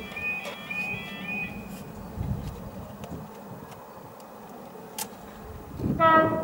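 Level crossing alarm warbling on its repeating two-note cycle, stopping about two seconds in with the barriers lowered. Near the end, a short loud horn note.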